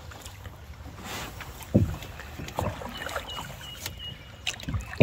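Canoe paddling in still swamp water: the paddle dipping and pulling through the water, with a few short knocks against the canoe.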